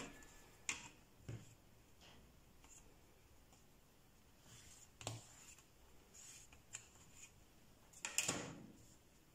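Faint handling sounds of a plastic set square and wool fabric on a worktable: a few scattered light taps, with a longer rustle near the end.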